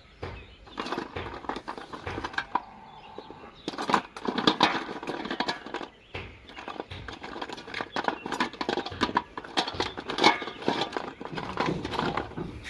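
Plastic PVC pipe fittings clattering as hands rummage through a basket of them: a dense run of light knocks and rattles.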